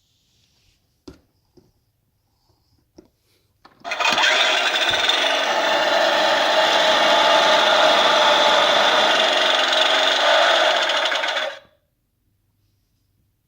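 Battery-powered Husqvarna toy lawn mower playing its electronic engine sound: a steady motor noise starts about four seconds in, runs for about eight seconds and cuts off suddenly. A few light clicks come before it.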